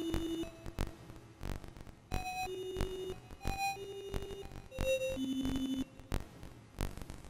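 Background electronic music: sparse synthesizer notes, one at a time, each held about half a second, with faint ticks between them.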